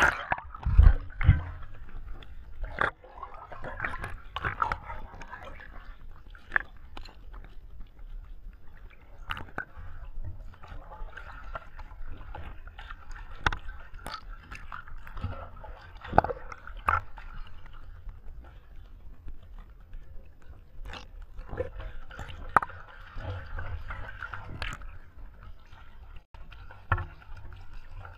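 Lake water splashing and sloshing as wet clothes are scrubbed and rubbed by hand in the shallows, with many irregular sharp splashes and drips.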